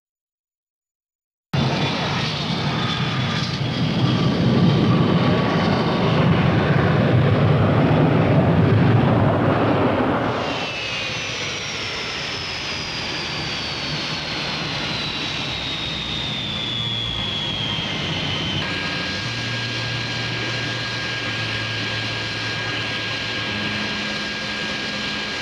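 Jet airliner engines. A loud roar cuts in suddenly and builds for several seconds, then drops away, leaving a high turbine whine that slowly falls in pitch and settles into a steady whine.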